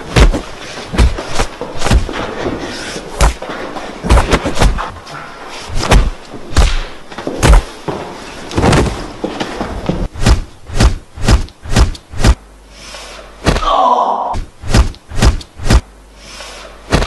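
A string of fight sound effects: punch and kick impacts, thuds and slaps, some with whooshes. The hits come unevenly at first, then in a quick run of about two a second near the end.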